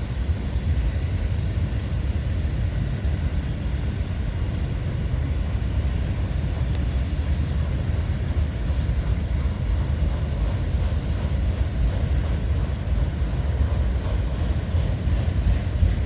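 Freight train cars of a manifest rolling past, making a steady low rumble with no horn sounding.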